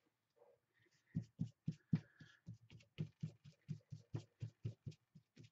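Fingers working wet acrylic paint into a paper page on a tabletop: soft, quick rhythmic strokes, about four a second, starting about a second in.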